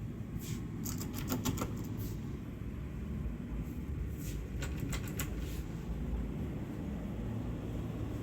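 Steady low rumble with scattered sharp clicks and ticks, some in quick runs, mostly in the first half and again around the middle.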